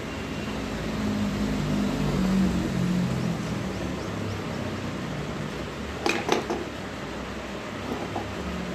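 Steady background hum like a running fan or air conditioner. Two or three sharp clicks come close together a little after six seconds in.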